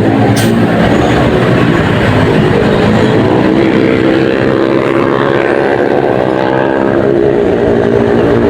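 Basuri musical air horn on a bus playing a tune, its notes changing pitch step by step, over engine and road noise.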